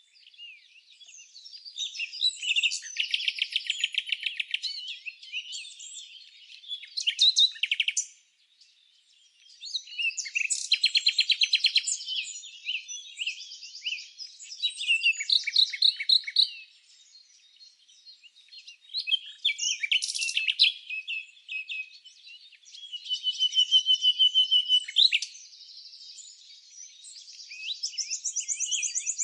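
Songbird singing in repeated bouts of rapid trills and chattering notes, each phrase lasting a few seconds with short pauses between.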